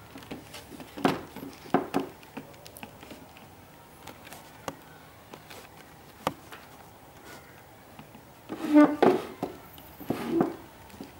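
Scattered light clicks and knocks as a small plastic netbook is handled and shifted on a wooden desk, with a louder cluster of knocks about nine seconds in.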